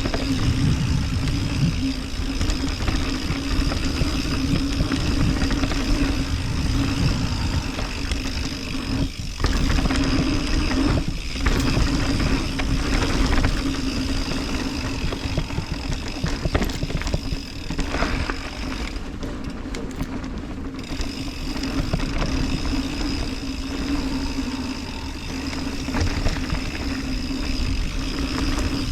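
Mountain bike ride down a dirt trail: constant rumble of wind and tyres on the camera mic, with a steady hum from the bike running underneath. The noise briefly drops away a few times in the middle.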